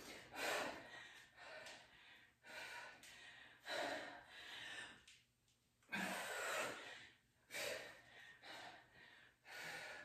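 A woman breathing hard in short, forceful breaths, about one a second, from the exertion of a kettlebell workout.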